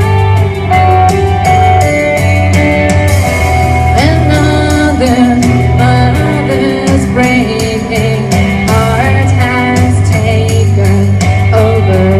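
Rock music with electric guitar over a steady drum beat, with a voice singing in places.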